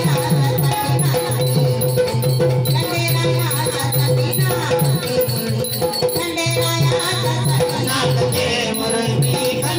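Marathi devotional jagran music: a voice singing over a steady drum beat, with a shaken, jingling rattle-like percussion running through it.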